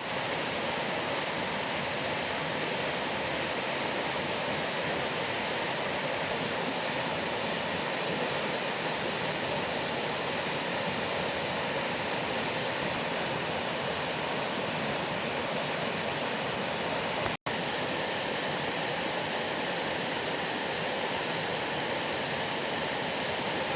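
Waterfall: a steady, even wash of falling water, with a split-second gap about seventeen seconds in.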